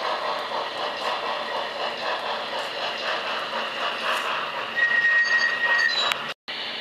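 Model steam locomotive running with a train of coal hopper cars, its wheels and mechanism giving a steady rolling rush. About five seconds in, a high steady tone sounds for about a second, and the sound drops out for a moment near the end.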